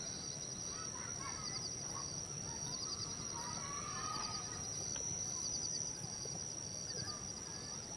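Natural ambience of birds chirping here and there over a steady high insect drone that breaks into a short trill about once a second.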